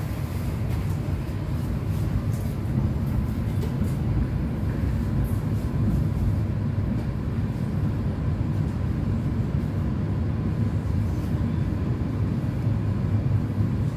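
Suburban electric train in motion: a steady low rumble of wheels and running gear, without breaks or distinct clanks.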